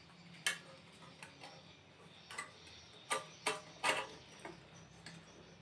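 Light metal clicks and taps as a cut light-steel (baja ringan) clamp strip is handled and fitted against the machine's metal body and motor mount. The clicks come scattered, most of them between about two and four seconds in.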